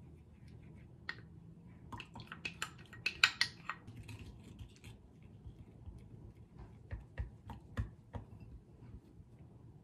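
Silicone spatula clicking and scraping against glass bowls as a pale mixture is scraped in and stirred, in a run of short irregular clicks. The busiest stretch comes about three seconds in, and a few duller knocks come near the end.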